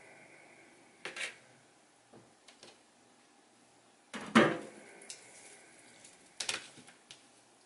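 Kitchen food-prep clatter: scattered knocks of a knife and food being handled on a cutting board, the loudest just past halfway.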